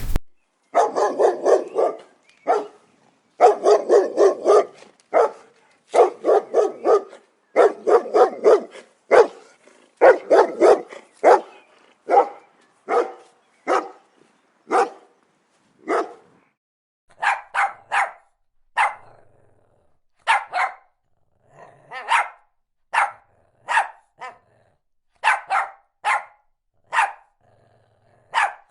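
A dog barking over and over: quick runs of several barks at first, then single, sharper barks about once a second.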